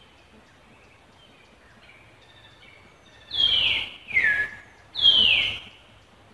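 Three loud, high calls, each about half a second long and falling in pitch, over a quiet outdoor background with faint short chirps.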